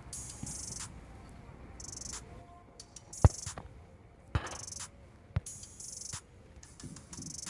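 A football struck hard: a sharp thud of the kick about three seconds in, followed by two weaker knocks about a second apart as the ball strikes the goal frame and lands. Short high-pitched chirps repeat throughout.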